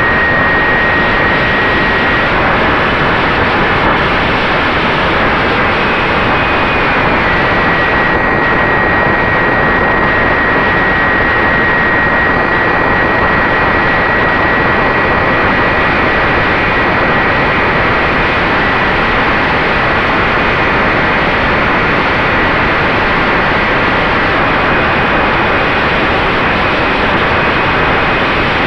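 Heavy wind noise rushing over the camera's microphone on an FX-61 Phantom flying wing, with the thin, high whine of its Turnigy 3542 brushless motor and 8x4 propeller. The whine is steady but shifts in pitch a few times.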